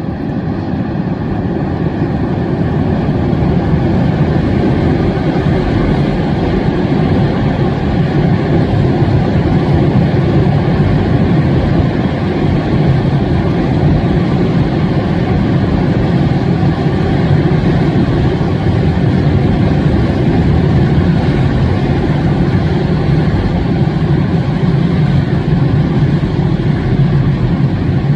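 Freight train rumbling past, building over the first few seconds and then holding steady.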